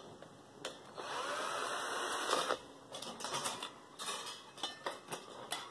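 Cordless drill-driver running for about a second and a half, its motor whine sliding in pitch as it backs out the last screw of the desk fan's casing, followed by light clicks and rattles of the loosened screw and metal parts.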